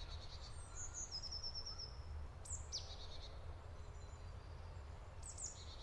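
Quiet forest ambience with a low steady rumble and a few small bird calls: a quick trill of rapid high notes about a second in, a short falling call near three seconds, and another brief call near the end.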